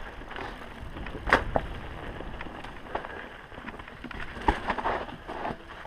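Mountain bike rolling fast down rocky dirt singletrack: a steady low rumble of tyres on the trail, broken by frequent sharp clacks and knocks as the bike rattles over rocks and roots, the loudest about a second in and again past four seconds.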